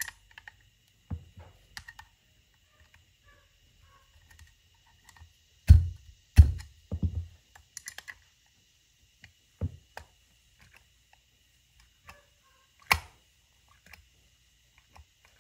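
Hand tools working on a Weber 44 IDF carburetor while its parts are tightened: scattered light metallic clicks and taps, with two heavier thumps about six seconds in and a sharp click near the end.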